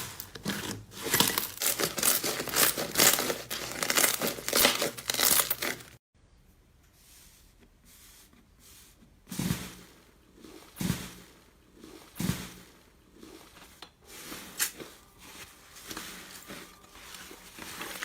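Slime being squeezed and pressed by hand. It makes a dense run of crackling and popping for about six seconds, then, after an abrupt break, quieter separate squishes and pops every second or two.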